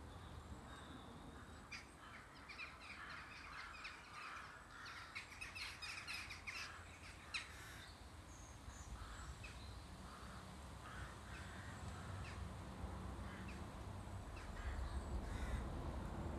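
A large flock of birds calling, many short calls overlapping, thickest in the first half and thinning out later. A low rumble grows louder near the end.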